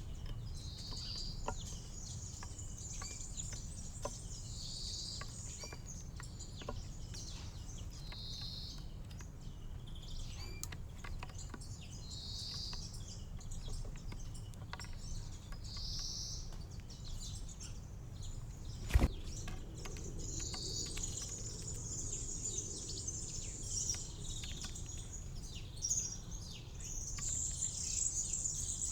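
Small birds calling and chirping, with one short call repeated about every three to four seconds and denser chirping near the end. A single sharp knock comes about two-thirds of the way through, over a steady low background rumble.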